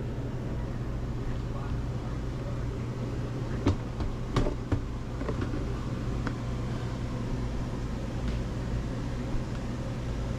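A few sharp plastic clicks and knocks from shop vac parts being handled and fitted, about four seconds in, again soon after, and once more around six seconds. A steady low background hum runs underneath.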